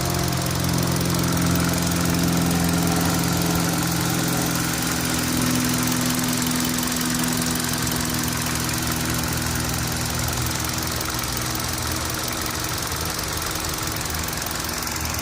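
Engine idling steadily with a fast, even knocking tick running through it. The knock is the complaint the engine is being recorded for.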